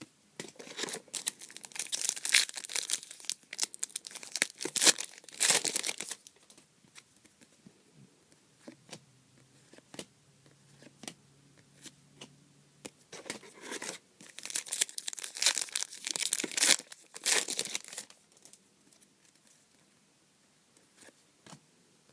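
Trading card pack wrappers being torn open and crumpled, in two bouts of crinkly tearing about eight seconds apart, with light clicks and rustles of cards being handled between them.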